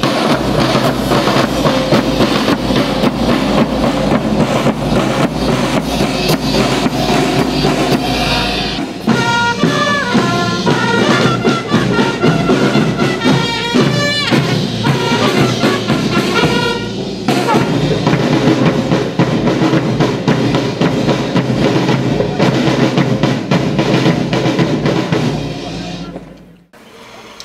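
Marching drum and bugle band playing: snare drums and a bass drum beat a steady march, with bugles and trumpets playing a tune over them for several seconds in the middle. The sound drops away suddenly near the end.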